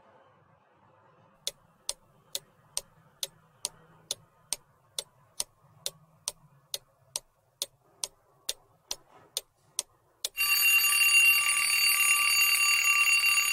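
Countdown timer sound effect: a clock ticking about twice a second for some eight seconds, then a loud alarm-clock bell ringing from about ten seconds in, marking that the answer time is up.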